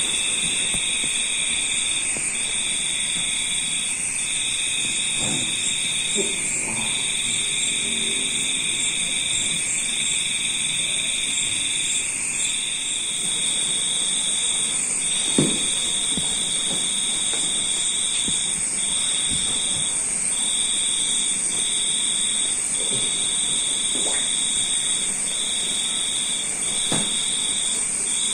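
A high-pitched buzzing trill that stops and restarts every one to two seconds, over a steady hiss, with a few soft knocks, the clearest about halfway through.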